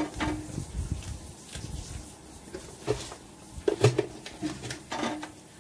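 Knife cutting through a tray of baked roqaq in a dark metal baking tray: scattered short clicks and knocks as the blade works through the browned pastry and meets the tray.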